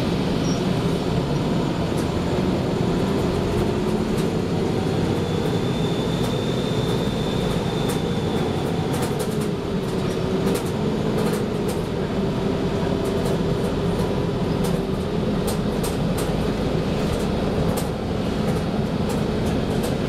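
Cabin sound of a 1994 TMC RTS transit bus under way: its Detroit Diesel Series 50 four-cylinder turbodiesel drones steadily, the pitch drifting a little, with frequent clicks and rattles from the body and fittings.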